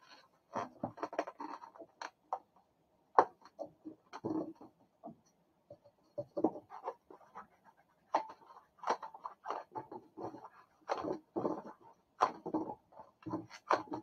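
Inflated latex twisting balloons squeaking and rubbing as they are twisted and tied together by hand, in short irregular bursts with a few sharper clicks, the loudest about three seconds in.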